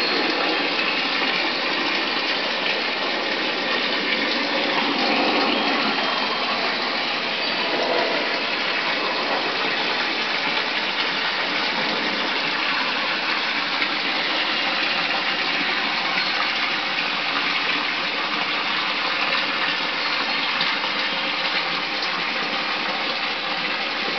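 Steady gush of running water.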